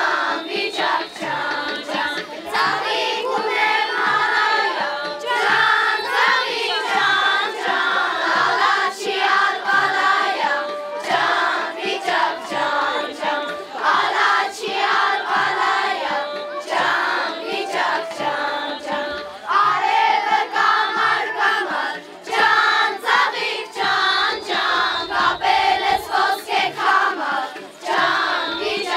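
Group of girls singing together in chorus, over a steady low beat about every two-thirds of a second.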